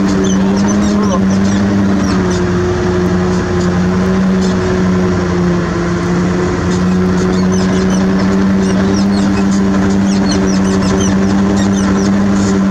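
Heavy diesel engine of the bulldozer or the self-loader truck running steadily at constant speed, with a strong even hum. Short high chirps or squeaks come and go over it.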